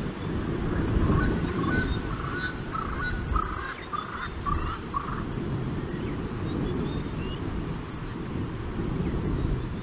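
Low wind rumble on an outdoor camera microphone. Over it, a bird gives a run of about ten short calls from about a second in to about five seconds in, with faint high chirps in the background.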